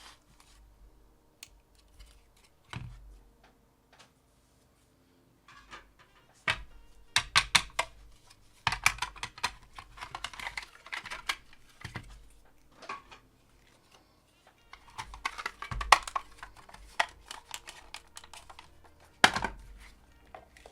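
Small parts and tools handled on a workbench: irregular clicks, taps and rattles, busiest in a few clusters, with one sharp loud click near the end.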